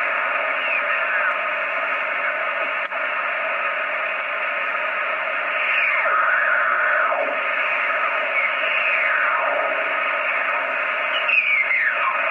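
Icom IC-706MkIIG transceiver's receiver audio on the 40-metre band in lower sideband as the main tuning dial is turned down the band: a steady band hiss with stations sliding down in pitch as the dial sweeps past them, several times.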